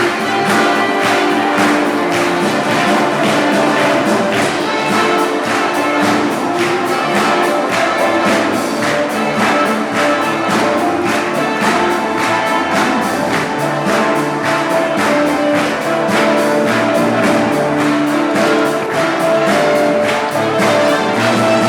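An orchestra playing, with brass prominent and a steady beat.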